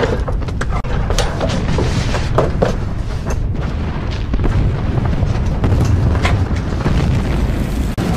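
Battle sound from a war film soundtrack: a continuous heavy low rumble of explosions, with scattered sharp cracks of gunfire and impacts over it.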